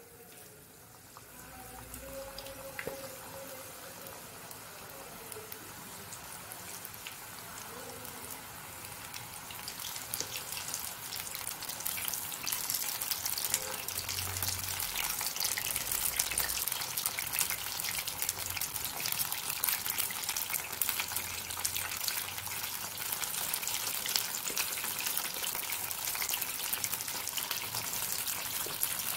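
Batter-coated mushroom pieces deep-frying in hot oil: a sizzle that starts faint and grows louder and denser with crackling as more pieces go into the oil, then holds steady.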